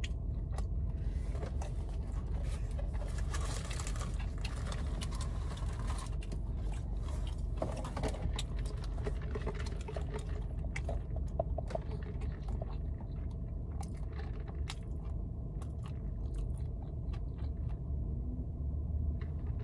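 Crinkling and rustling of paper-and-cardboard takeout packaging being handled, with scattered clicks and crackles, over a steady low hum.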